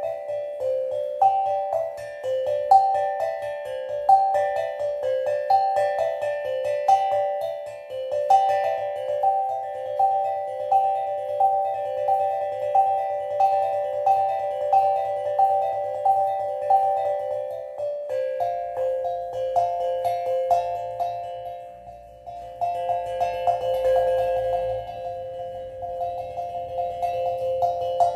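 Steel tongue drum played slowly: single struck metal notes ringing out one after another in an even, repeating pattern. It fades briefly about three-quarters of the way through, then resumes with more notes sounding over one another.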